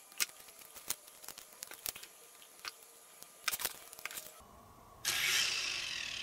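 Light plastic clicks and taps of small parts being handled, then about five seconds in the electric motors of a Syma S109G coaxial toy RC helicopter spin up suddenly and whine, falling slowly in pitch and level as the throttle is eased off. The helicopter is running on a borrowed micro-drone battery that replaces its own puffed one.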